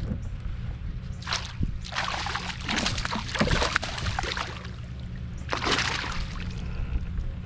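Water splashing and sloshing in three bursts, the longest in the middle, over a steady low hum.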